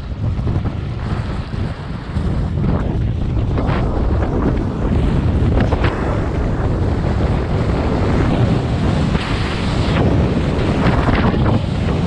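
Wind rushing over the microphone of a skier moving downhill, with the hiss and scrape of skis carving on packed snow, which swells in several longer surges.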